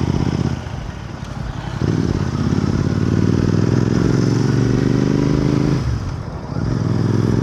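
Royal Enfield Continental GT 650's parallel-twin engine pulling on the move. It comes on strongly about two seconds in, its pitch slowly rising as it accelerates, eases off briefly near six seconds and picks up again near the end.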